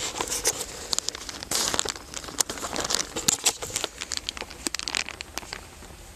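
Plastic zipper bag crinkling and rustling as it is handled, a dense run of quick crackles that dies down near the end.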